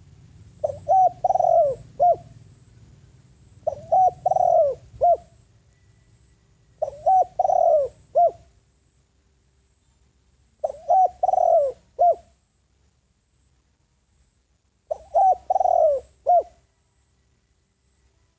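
Spotted dove cooing: five phrases of about four notes each, two short notes, a longer one and a short last note, repeating every three to four seconds with a longer pause before the last.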